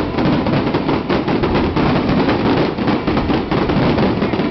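Daytime fireworks barrage: a dense, unbroken run of aerial firecracker bangs and reports, many a second, overlapping one another.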